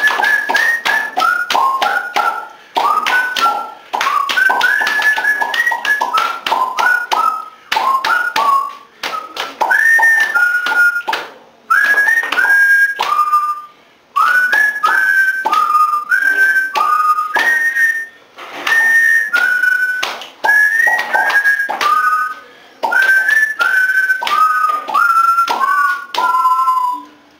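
Body music: a whistled tune in short phrases, with sliding notes, over many sharp hand claps and taps. The phrases break off briefly about every two seconds.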